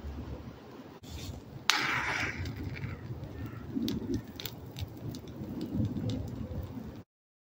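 Small fire burning on bare ground, with a low rumble and scattered sharp crackles and pops. It gets suddenly louder just under two seconds in, and the sound cuts off about seven seconds in.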